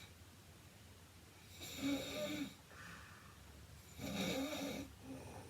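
A sleeping woman snoring: two rough snores, each about a second long and about two and a half seconds apart.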